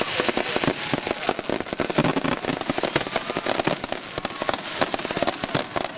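Dense, continuous barrage of aerial firework shells bursting, with crackling and many sharp reports a second and no pause between them.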